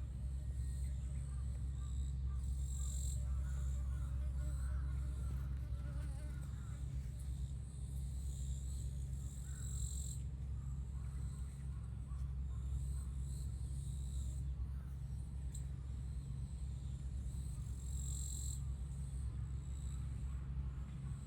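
Insects buzzing: a wavering fly-like buzz in the first few seconds over a high insect drone that swells several times. A steady low rumble runs underneath.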